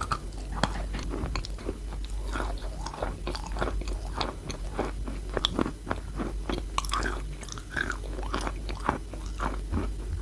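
Close-up biting and chewing of wet chalk: dense, gritty, sandy crunches, many small crackles a second, keeping on without a break. A steady low hum runs underneath.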